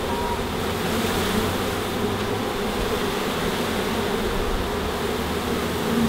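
Steady hum of a mass of honeybees buzzing as they are shaken from a box into an open hive.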